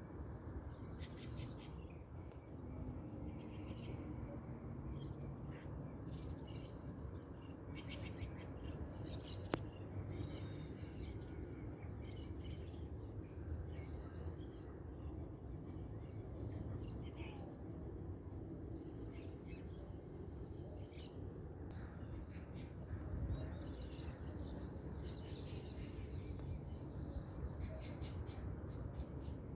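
Many birds chirping and calling at once in a dawn chorus, short overlapping calls throughout, over a steady low background rumble.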